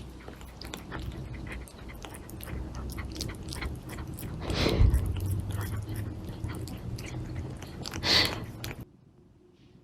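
A small pet chewing: a dense run of irregular, crisp clicks, with louder moments about halfway through and again near the end, stopping abruptly about nine seconds in.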